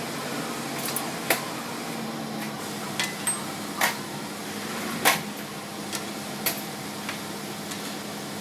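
Hand tools knocking and clinking against metal parts during wheel hub bearing work: half a dozen sharp, separate knocks over a steady low hum.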